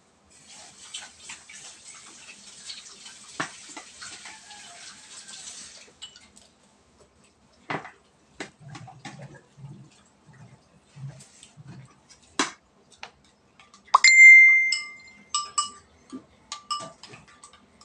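A spoon clinking against ceramic plates and a bowl during a meal: scattered sharp clicks, with one loud, ringing clink about fourteen seconds in and a few lighter ringing taps after it. A hissing noise with crackles fills the first six seconds.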